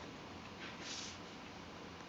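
A pen drawing a line along a ruler on paper: one short stroke about a second in, over faint room noise.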